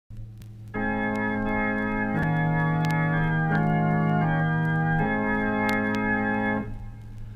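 Organ playing sustained chords as the introduction to a hymn tune, with the chord changing about three times before the playing stops shortly before the end. A low steady hum runs underneath.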